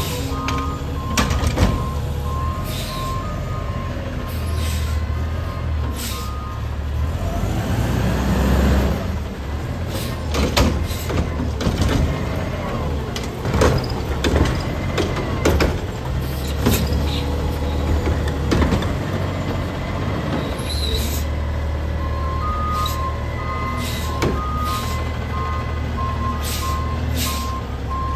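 Automated side-loader garbage truck at work: the diesel engine runs and revs up several times to drive the hydraulic arm, which grabs, lifts and dumps a yard-waste cart with repeated clanks and knocks. An evenly repeating warning beeper sounds at the start and again near the end.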